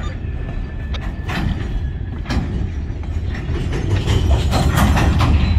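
Railroad hopper cars rolling slowly over a grade crossing: a steady low rumble with scattered clanks and knocks from the wheels and couplers, and a faint thin squeal in the first two seconds.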